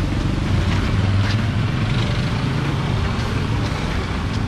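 Street traffic: a motor vehicle's engine running close by, a steady low rumble.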